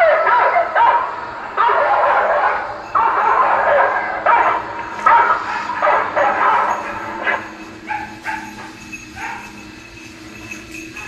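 Hunting hounds barking in a repeated string of barks, which grow fewer and fainter after about eight seconds.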